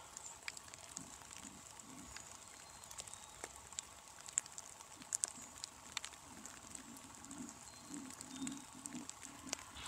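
Scattered raindrops ticking on dry leaves and brush, irregular sharp little clicks over a light hiss. In the second half a faint, soft series of low pulses comes in.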